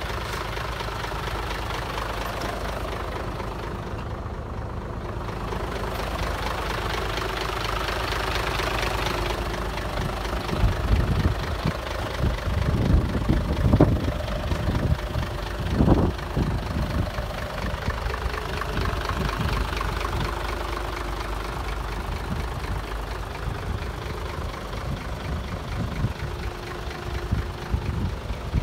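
A removal truck's engine idling steadily. Irregular low thumps and knocks come in over it from about ten seconds in.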